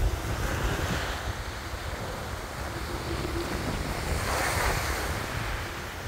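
Sea surf washing in, swelling about a second in and again around four to five seconds in, over a steady rumble of wind on the microphone.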